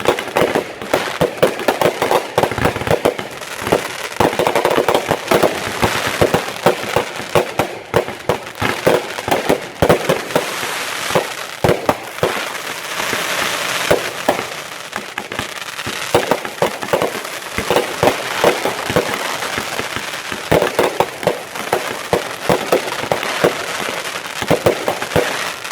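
Fireworks display going off continuously: a rapid, dense run of bangs, pops and crackling from shells bursting overhead.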